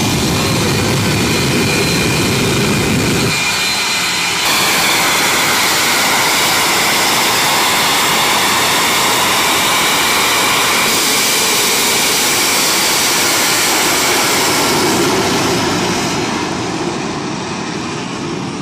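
Shockwave jet truck's three Pratt & Whitney J34 jet engines running at full power with afterburners lit: a loud, steady jet blast whose tone jumps abruptly a few times. Near the end it fades as the truck runs away down the strip.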